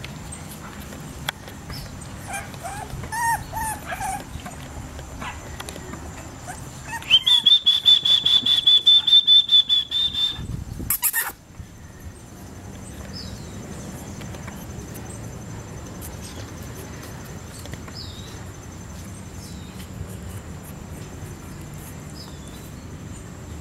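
English bulldog puppy giving a few short high whimpers. A few seconds later comes a louder, steady high-pitched tone pulsing rapidly for about three seconds, then a heavy thump.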